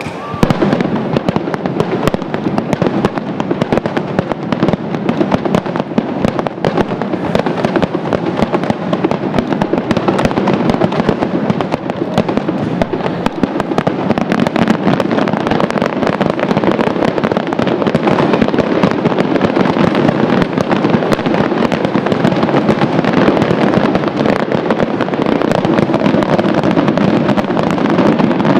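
Aerial fireworks display in a dense barrage: many bangs and crackles overlap without pause.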